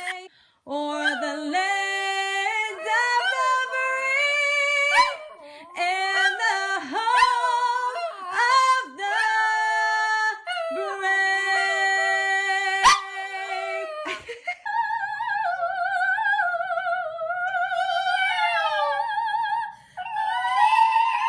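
Dogs howling in long, sliding and held notes, as if singing along to a tune. Near the middle the howl turns higher and wavers up and down.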